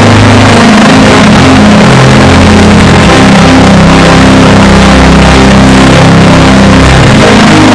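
A congregation praying aloud all at once over church music, a dense wash of many voices with a sustained low accompaniment, very loud.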